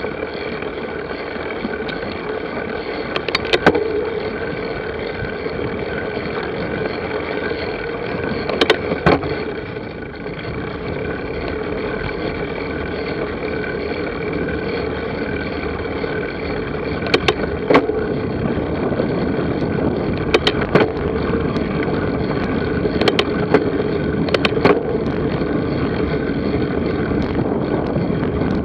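Steady running noise of a vehicle in motion, with a few short sharp knocks and rattles scattered through it.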